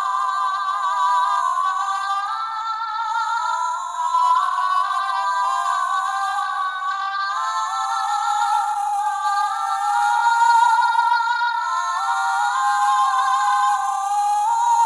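Two Ursula voice-stealing shell necklace toys, the 2019 Disney Store version and the 2023 Jakks Pacific version, play Ariel's wordless singing at the same time through their small built-in speakers. Overlapping held notes with vibrato compete with each other. The sound is thin and tinny, with no bass.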